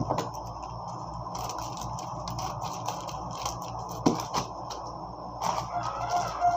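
Hands handling album packaging during an unboxing: scattered light clicks, taps and scrapes over a steady background hum, with a sharper knock about four seconds in.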